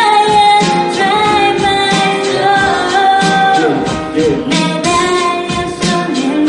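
A female voice singing a pop ballad into a microphone over a backing track, amplified through the hall's sound system, with long held notes.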